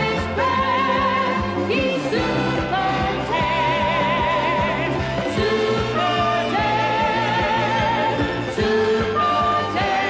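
Cartoon end-credits theme music: a melody of long, wavering held notes that changes pitch about once a second over a steady accompaniment.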